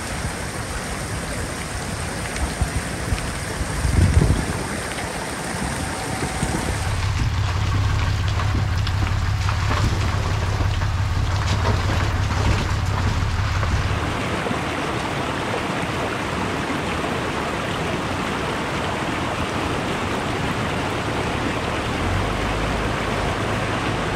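Pickup truck with a slide-in camper driving along a wet gravel road: engine hum and tyre noise, with a brief loud low rumble about four seconds in as it passes close. Later a steady rush of running water, as from a roadside stream, covers the engine.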